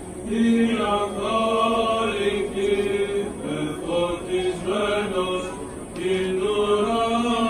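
Byzantine chant of a Greek Orthodox vespers service: a chanter's voice holding long notes that step up and down in pitch, with short breaks between phrases.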